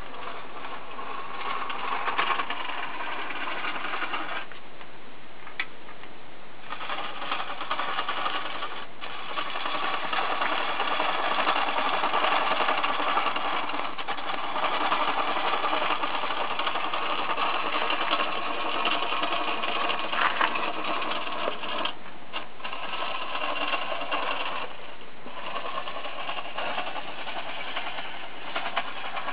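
Antique foot-treadle wood lathe running, with a hand chisel cutting a spinning pen blank: a steady rasping cut along with the mechanical running of the treadle drive. The cutting stops briefly a few times.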